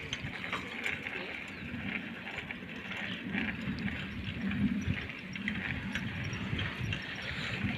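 Wind buffeting the microphone with rolling road noise while riding a bicycle, a rough, uneven rumble with faint ticks.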